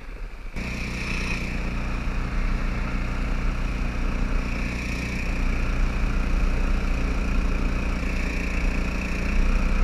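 Small boat motor running steadily under way, a constant low drone, with water rushing along the hull.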